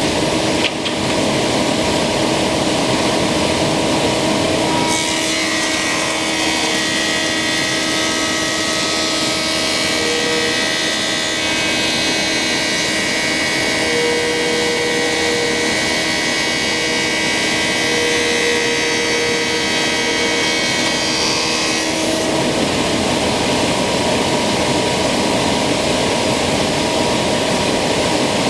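Thickness planer with a Tersa-knife cutterhead running steadily. About five seconds in, two black walnut boards fed side by side enter the cut, adding a higher ringing tone and more hiss until about 22 seconds in, when the machine runs free again.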